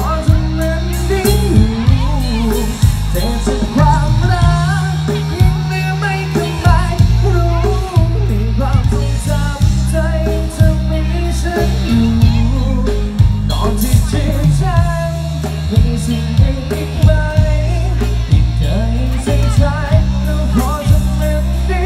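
Song with a singer, drums and heavy bass, played loud through a Thai rot hae sound-truck band's outdoor PA system.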